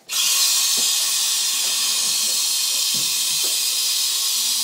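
Gas hissing steadily from a hose-fed balloon inflator nozzle as a latex balloon is filled, starting abruptly.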